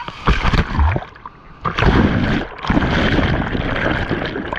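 Breaking surf crashing over a camera at the water's surface: loud rushing, churning white water and low rumble, dipping briefly about a second in, then surging again as the camera is tumbled under the foam.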